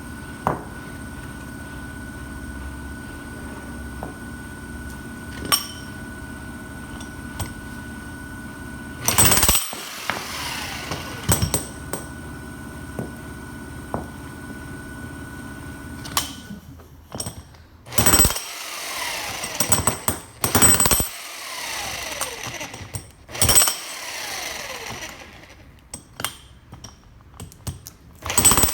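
Makita HM1304 electric demolition hammer test-run in short bursts: after a low steady hum with a few clicks, it runs about six times for a second or two each from about nine seconds in, its motor winding down in falling pitch after each run.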